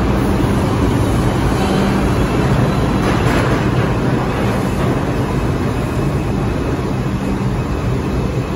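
New York City subway train (R142-family car) running along the track, a steady rumble of wheels on rail with a low hum underneath.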